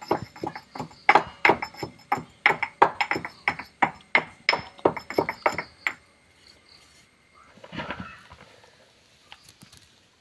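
A quick, irregular run of sharp clinking knocks, about three or four a second, each with a short ringing note, stopping about six seconds in.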